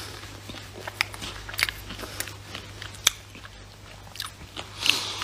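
Scattered sharp clicks and mouth noises close to a phone's microphone, about half a dozen spread across a few seconds.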